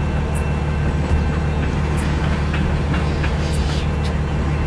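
Long CN mixed-freight train rolling slowly past a level crossing: a steady low rumble with occasional faint wheel clicks over the rail joints.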